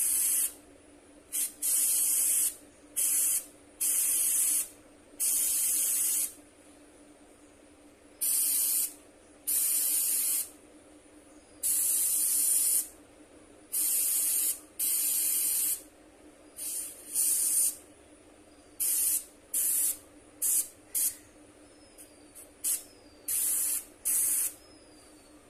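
Airbrush spraying paint in many short hissing bursts, each from a fraction of a second to about a second long, with brief pauses between them. A low steady hum runs beneath.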